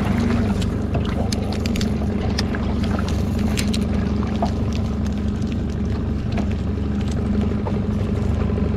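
A small fishing boat's motor running with a steady hum, with scattered light clicks and knocks from rod and spinning-reel handling over it, most of them in the first half.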